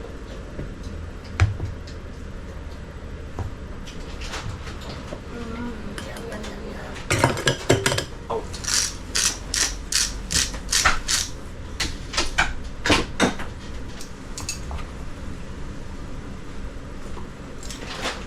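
Kitchen utensils clinking against a mixing bowl during cake batter preparation. A few scattered clinks are followed, about seven seconds in, by a run of about a dozen sharp, regular clinks, roughly two a second, over a steady low hum.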